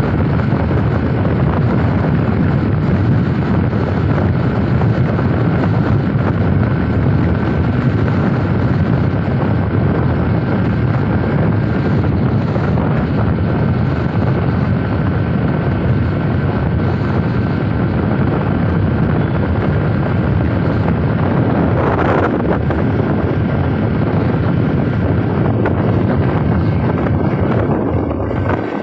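Heavy wind buffeting the microphone from a moving vehicle, mixed with road noise, steady and loud throughout, with a faint steady whine above it.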